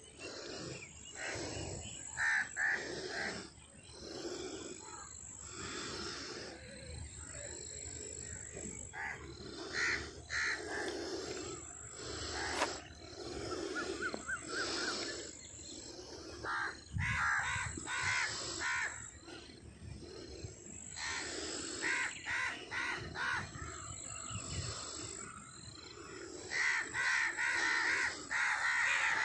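Birds calling over and over, in short clusters of calls every few seconds.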